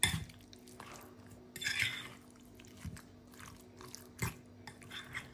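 A fork mixing raw chicken pieces with cornstarch and seasonings in a plastic bowl: soft wet squelching with scattered clicks and scrapes of the fork against the bowl, and a sharp tap about four seconds in.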